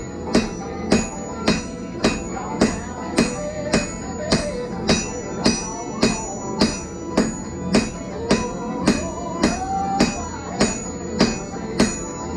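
Hand hammer striking a glowing steel billet on an anvil in a steady rhythm of about two blows a second, each blow ringing bright, to set the forge weld in a canister Damascus billet. Music plays underneath.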